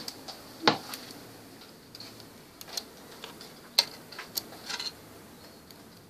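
Irregular small clicks and taps of a screwdriver handling tiny screws and a metal drive bracket during a laptop hard-drive swap, with two louder knocks, one about a second in and one near four seconds.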